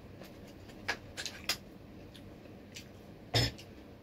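Sporadic sharp clicks and crackles of crab shell being cracked and handled at a meal, with one louder thud about three and a half seconds in.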